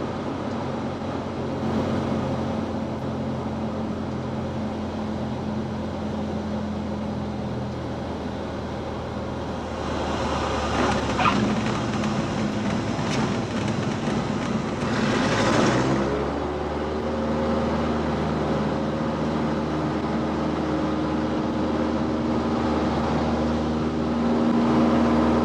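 Cessna 172's propeller engine heard inside the cabin, running at low power as the plane settles onto the runway, with a noisier stretch and a few sharp knocks around ten to thirteen seconds in as the wheels touch down. About sixteen seconds in the engine note rises and holds higher.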